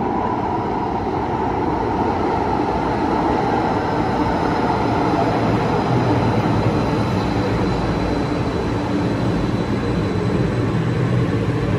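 Light-rail train pulling into a station platform and slowing: a steady rumble of wheels on rails with a faint high whine over it.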